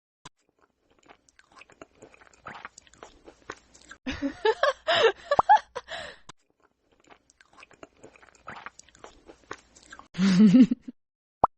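A person chewing and biting crunchy food close up, with many small crunches and clicks. About four seconds in comes a louder voiced mouth sound whose pitch bends up and down, and near the end a short low voiced hum.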